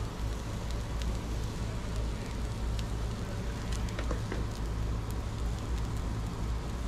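Gas burners running under griddles of chicken and fried rice: a steady low roar with light sizzling and crackling from the hot food, and a few faint clicks.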